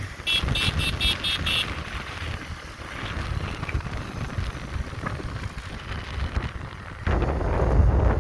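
Wind buffeting the microphone of a vehicle travelling over a gravel road, with a steady low rumble. About six short, high-pitched beeps come in quick succession in the first second and a half. The wind and rumble grow louder about seven seconds in.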